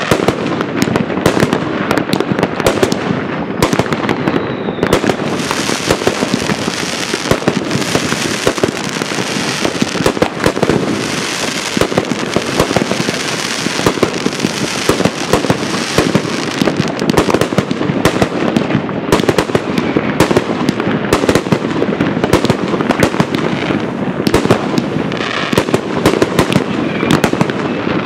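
Large fireworks display: a continuous barrage of shells launching and bursting, a dense run of bangs and crackle, with a thicker spell of hissing crackle from about five to sixteen seconds in.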